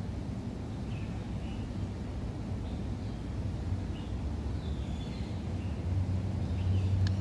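Steady low rumble of road traffic, growing louder near the end, with faint scattered bird chirps above it.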